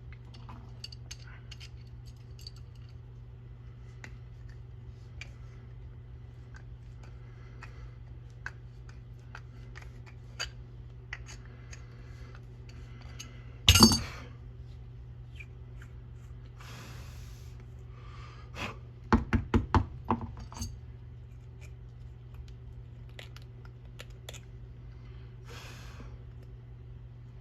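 Small tools and plastic parts being handled on a workbench: scattered light clicks and clinks, one louder knock about halfway through and a quick run of five or six clicks a few seconds later, over a steady low hum.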